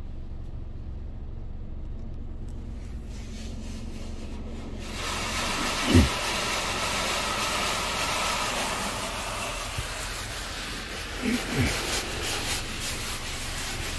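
Heard from inside the car, a touchless automatic car wash starts blasting against the vehicle about five seconds in, a loud steady hiss over a low cabin rumble. Two low thumps come with it, the louder one just after the hiss begins and another near the end.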